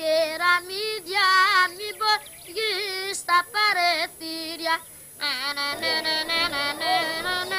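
A high solo voice singing a slow folk song in phrases, with wavering, ornamented held notes. About six seconds in, the sound grows fuller.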